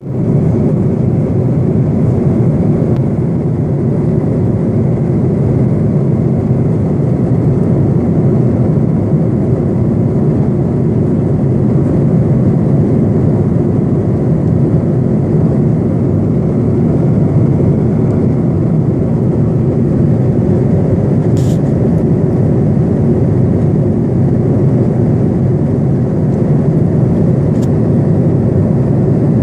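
Airliner cabin noise in flight: the steady low roar of the engines and rushing air heard from inside the cabin, with two brief clicks in the second half.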